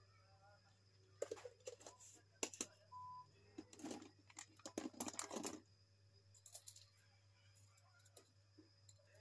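Glass jars and plastic lids clinking and rattling against each other and a plastic basket as they are handled on a kitchen counter, a run of sharp clicks from about one to six seconds in.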